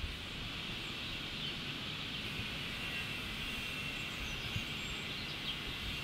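Steady outdoor background noise: a low rumble with small bumps and a higher steady hiss, with a few faint, short, high bird chirps in the middle. The herons make no call.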